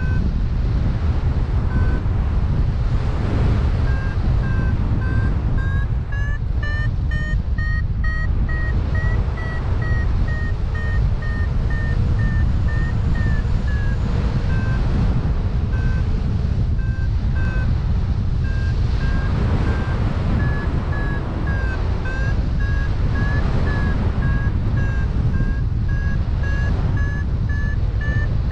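Paragliding variometer beeping in a quick, steady run of short tones, the pitch rising for a few seconds and then easing back down; beeping like this signals that the glider is climbing in lift. Heavy wind rumble on the microphone runs under it and is the loudest sound.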